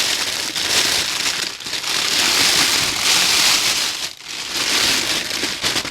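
Crinkly packaging wrapping being rustled and crumpled by hand as a swap box is unpacked, a loud continuous crackle with two brief pauses.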